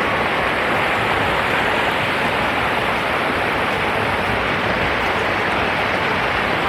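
Rushing water, a steady, unbroken hiss and rumble of a waterfall or fast-flowing stream.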